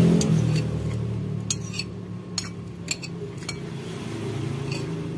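Metal spoon clinking and scraping against a ceramic bowl while eating, about six light clinks spread over a few seconds, over a low background hum that fades in the first second.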